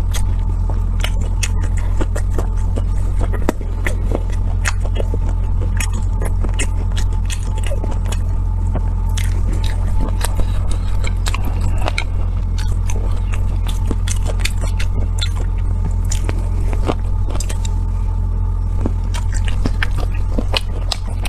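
Close-miked eating of roasted sweet potato: biting and chewing with many sharp wet mouth clicks and smacks, over a steady low hum.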